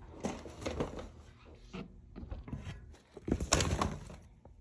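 Handling noise: irregular rustling of fabric and light knocks as the phone is moved about against clothing, with a louder rustle about three-quarters of the way in.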